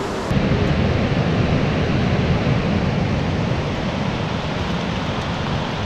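Steady rush of a fast glacial river running over rapids and rocks. It turns abruptly fuller and louder shortly after the start.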